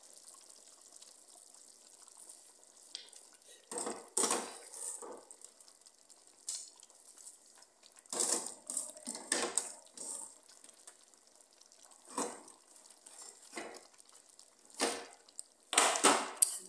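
Shredded cabbage being dropped by the handful into a steel pot of hot, steaming stew, with a short rustling hiss each time, several times over, loudest near the end.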